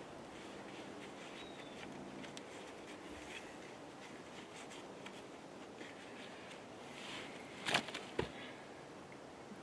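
Faint steady background with a few light ticks, then two sharp knocks about half a second apart near the end.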